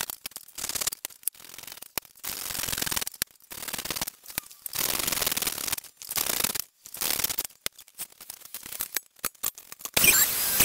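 Metal bench plane taking repeated strokes along the edge of a wooden strip: a series of swishing shaving strokes, each under a second, with short pauses between. Near the end a benchtop thickness planer comes in much louder, with a steady whine.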